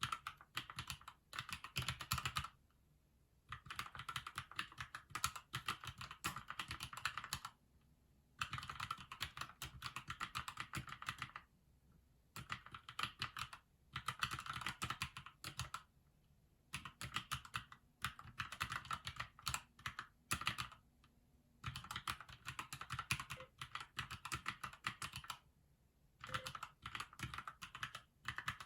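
Typing on a Keychron mechanical keyboard: rapid runs of key clicks a few seconds long, broken by short pauses.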